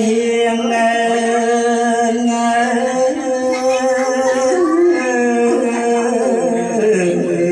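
A man chanting a Khmer poem unaccompanied in the smot style, holding long drawn-out notes that slide and step in pitch.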